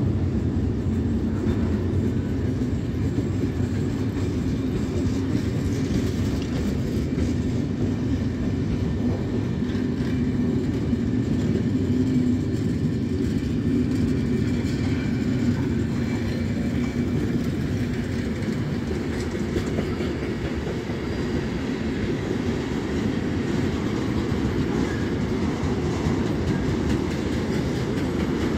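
Track-construction work train of maintenance cars and a sleeping-quarters coach rolling past: a steady rumble of steel wheels on the rails.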